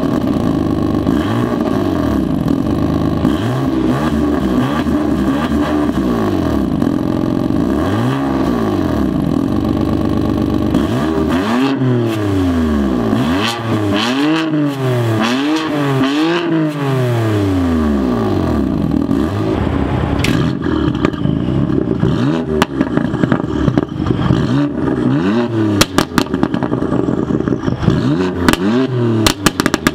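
2018 BMW M4's S55 twin-turbo straight-six, fitted with an Active Autowerke single high-flow midpipe and the stock exhaust, revved repeatedly at a standstill, its pitch rising and falling with each blip. From about twenty seconds in, a flash tune with an aggressive burble map adds sharp pops and crackles on the overrun.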